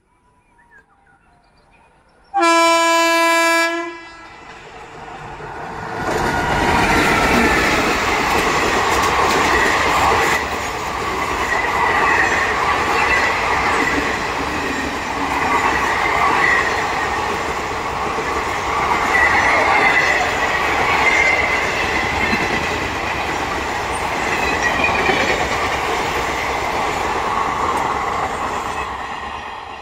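An approaching Indian Railways electric-line locomotive sounds one horn blast of a single pitch, about a second and a half long. A few seconds later a long train of passenger coaches passes close by: a loud, steady rumble and rattle of wheels on the rails, with a wavering high wheel squeal over it, easing off near the end.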